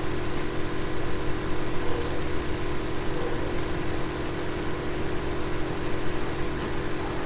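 Steady mechanical hum with several steady tones, unchanging throughout.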